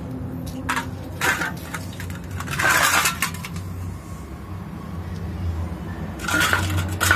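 Clinks of a shallow steel bowl and splashing water as live catfish are moved in and around it, in a few separate bursts: a click a little under a second in, one about a second and a half in, a longer burst near three seconds and another over the last second. A steady low hum runs underneath.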